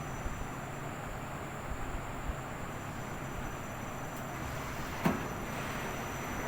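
Washing machine running with a steady rumble and low hum, and one sharp click about five seconds in.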